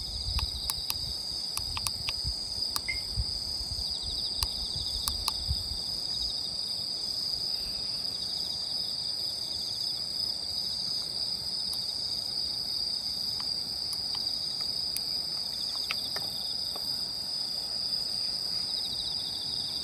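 Chorus of crickets and other night insects: a steady, high-pitched trilling with a pulsing trill beneath it. Scattered sharp clicks, mostly in the first few seconds.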